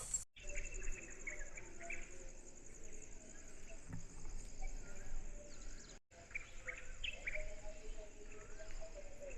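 Night insect chorus: a steady, high, pulsing trill, with short warbling chirps scattered over it. The sound drops out for an instant about six seconds in.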